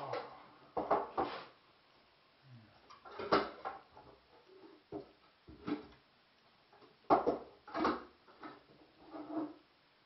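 Dishes and pots being washed up by hand at a kitchen sink: irregular clinks, knocks and clatters of crockery and metal pans being set down and moved, some ringing briefly.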